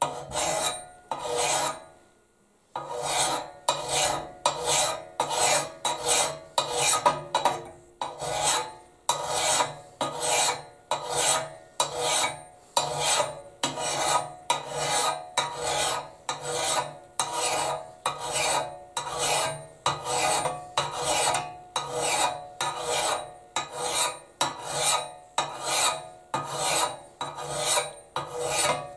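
Flat file rasping across the steel axe bit of a Pulaski held in a vise, sharpening the edge. It is a steady, even run of strokes, broken by a short pause about two seconds in.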